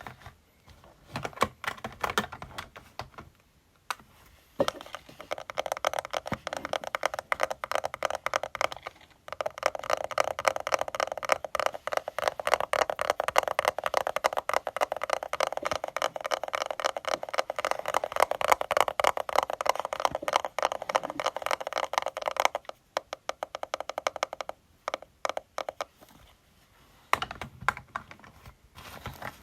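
Fingernails tapping rapidly on cosmetics packaging as a fast, dense run of small clicks, with sparser, softer taps at the start and near the end.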